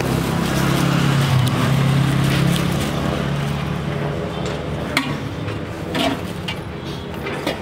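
Street traffic: a motor vehicle's engine running close by, a steady low hum that is loudest in the first few seconds and then fades, with a couple of sharp clicks about five and six seconds in.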